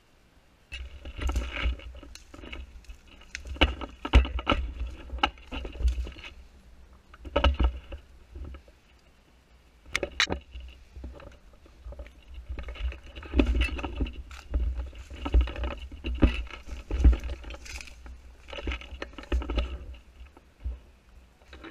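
Handling noise from a gun-mounted action camera as the airsoft rifle is carried through brush: irregular bursts of rumbling bumps and leaves rustling against it, with a few sharp knocks.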